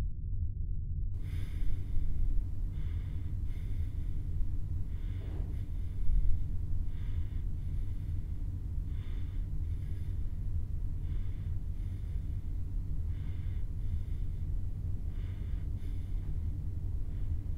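A person breathing heavily and raggedly, about one breath a second, over a steady low hum.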